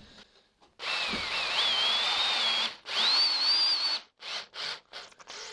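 Cordless drill-driver driving a screw through a pre-drilled wooden wall panel into a metal stud. The motor runs in two long pulls, its whine rising in pitch each time, followed by a few short bursts near the end.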